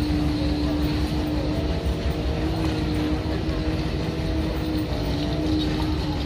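Steady drone of a boat's engine running, with a humming tone that rises slightly a couple of seconds in and settles back near the end.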